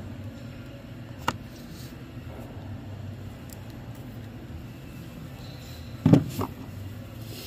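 Hand-tool work on fan motor wiring: a sharp click about a second in, then near the end a loud clunk and a lighter knock just after, as if red-handled pliers are set down on metal, over a steady low hum.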